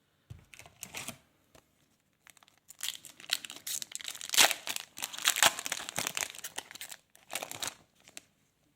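A trading-card pack's wrapper being torn open and crinkled by hand: irregular bursts of tearing and rustling, loudest in the middle stretch.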